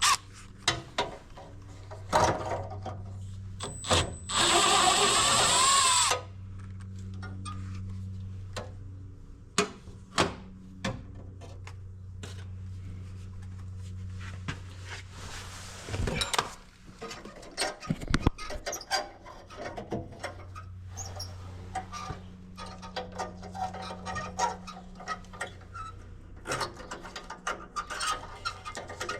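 Hand tools and metal parts clicking and knocking while a gas furnace's flame sensor is being removed, with a cordless drill/driver running for about two seconds about four seconds in, over a steady low hum.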